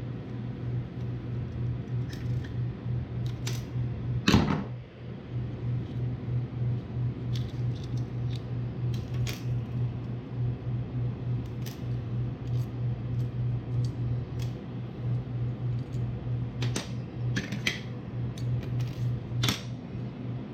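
A steady low hum with a fast flutter, under scattered small clicks and taps of a wire and tools being handled. There is one louder knock about four seconds in.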